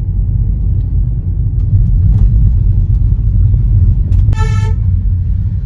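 Steady low rumble of a car's engine and tyres heard from inside the moving car, with one short car-horn honk about four seconds in.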